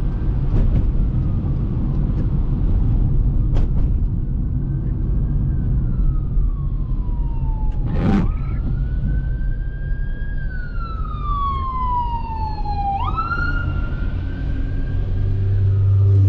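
An emergency vehicle's siren wailing, coming in about a quarter of the way through. Its pitch falls slowly over a few seconds, then jumps back up, twice. It is heard from inside a moving car over the steady low rumble of tyres on a wet road, with one sharp thump from the windshield wiper about halfway through.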